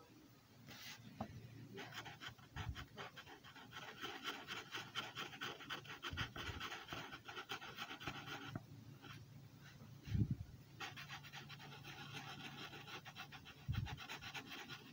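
Sharpie marker scratching across paper in quick, short strokes as it inks in a scale pattern, in two long runs with a pause of about two seconds between them. A few soft low thumps fall among the strokes, the loudest about ten seconds in.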